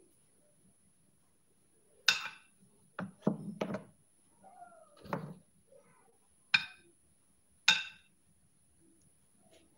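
A metal spoon knocking against a plate as salad is scooped: several separate sharp knocks, with a quick cluster of them about three seconds in.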